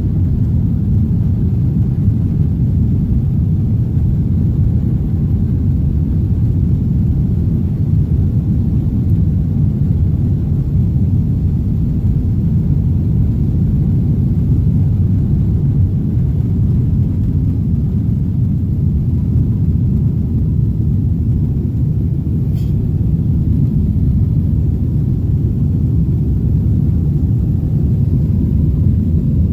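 Cabin noise of a Boeing 767-400ER accelerating down the runway and lifting off: a loud, steady low rumble from the engines at takeoff power and the wheels on the runway. A faint click comes about three-quarters of the way through.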